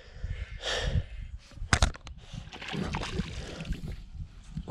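Water sloshing against a kayak, with a couple of sharp knocks just under two seconds in as gear is handled on board.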